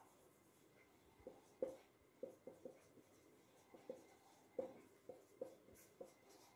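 Marker pen writing: a series of faint, short squeaks, one with each pen stroke.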